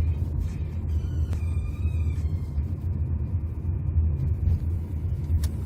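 Steady low rumble of a 2018 Jeep Compass on the move, road and tyre noise, with two light clicks, one about a second in and one near the end.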